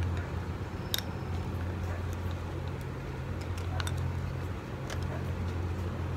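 A few small sharp clicks of a mirrorless camera body and its kit lens being handled, their plastic caps coming off for mounting, over a steady low background hum.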